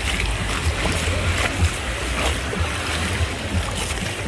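Small waves washing and splashing in the shallows at the shoreline, with wind buffeting the microphone as a steady low rumble.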